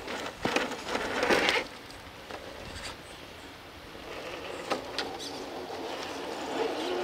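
Traxxas TRX-4 RC crawler climbing over rock and snow in high gear: its electric motor and drivetrain whir in short bursts, with tyres scrabbling and clicking on rock, over the first second and a half. It goes quieter for a few seconds, then the motor whine builds again near the end.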